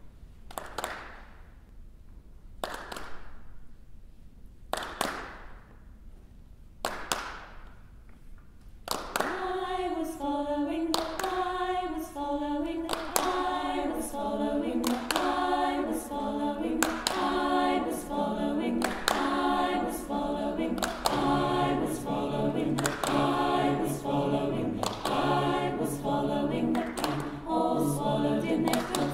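A cappella mixed choir with hand clapping. First, slow single claps about every two seconds ring in the hall. From about nine seconds the choir sings over a steady clap beat, and a low bass part joins about twenty seconds in.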